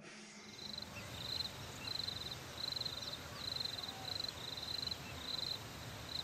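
Outdoor ambience with an insect chirping: short, high trilled chirps repeating a little under two times a second over faint low background noise.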